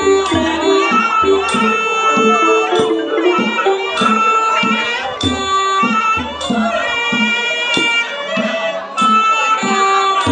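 Khmer pin peat ensemble playing: the reedy, sustained melody of a sralai quadruple-reed oboe over the running mallet notes of roneat xylophones. A sharp percussion stroke lands about every second and a quarter, with low drum thumps now and then.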